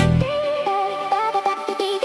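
Electronic background music: an instrumental passage with a sustained synth melody, the heavy bass dropping out just after the start.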